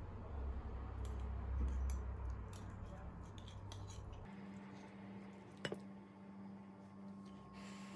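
Metal fork and spoon scraping and clicking lightly against a ceramic bowl while twirling spaghetti, with one sharper clink a little past halfway. A steady low hum runs underneath and shifts higher about halfway through.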